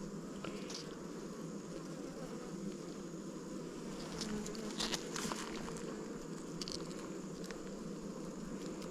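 Honey bees buzzing in a steady hum around an open hive. A few short clicks come about five seconds in.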